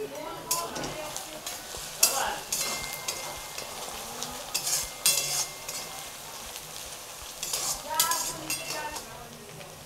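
Chopped onions sizzling in hot oil in a metal kadai as they brown. A metal spatula scrapes the pan several times as it stirs them.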